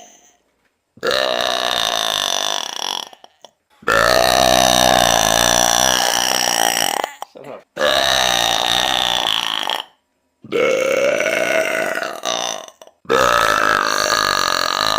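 A woman belching five times in a row. Each belch is loud and long, lasting two to three seconds, with short pauses between them.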